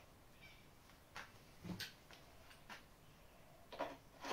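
Plastic packaging being handled on a wrapped bike part: a few faint, scattered clicks and crinkles, with a sharper click near the end.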